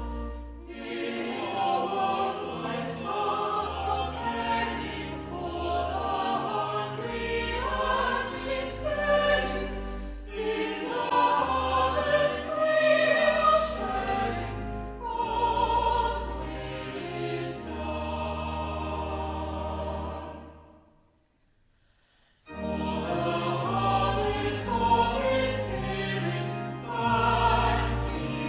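A choir singing a classical-style sacred piece with instrumental accompaniment and deep held bass notes. About 21 seconds in the music fades to near silence for a second or two, then starts again.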